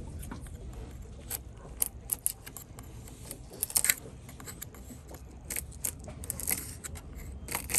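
A hand scraper stripping old paint and coating off a wooden boat deck: irregular short scrapes and metallic clicks, a few sharper ones about two and four seconds in, over a steady low rumble.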